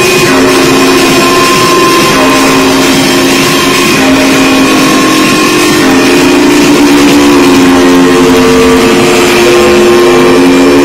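Loud techno from a DJ set: droning synth tones held and slowly shifting over a noisy wash, with no steady kick-drum beat, as in a breakdown.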